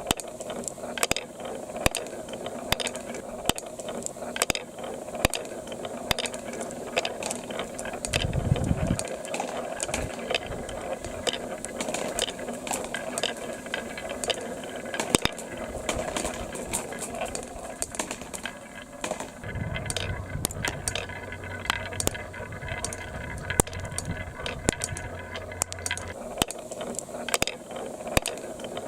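Plastic marbles clicking and clattering along a plastic marble run course, a dense, irregular run of sharp clicks over a steady wash of running water. A low hum joins in for several seconds in the second half.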